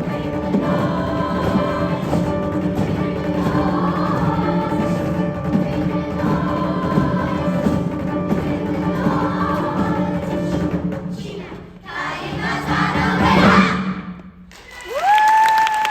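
Youth choir singing sustained chords over a steady low drone, then building into a loud, noisy rising swell that cuts off sharply about a second and a half before the end. After a brief gap, a single rising high cheer comes from the audience.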